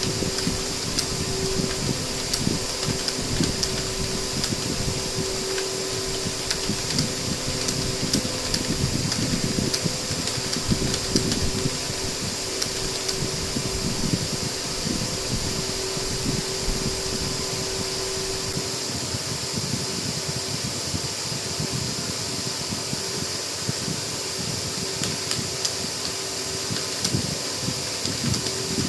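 Continuous, fast computer-keyboard typing: many light, irregular key clicks over a steady, fan-like hum.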